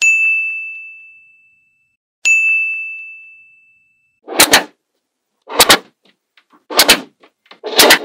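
Two clear bell-like dings, each ringing out and fading over about two seconds. Then sharp clicks and clacks of small magnetic balls snapping together as slabs of them are set in place, about one a second.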